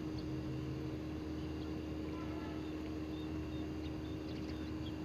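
A steady low mechanical hum, with a few faint, short, high chirps about two to four seconds in.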